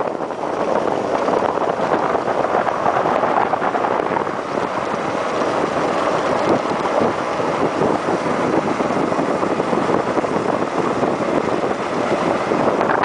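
Motorcycle riding at speed: wind rushing over the microphone mixed with steady engine and road noise.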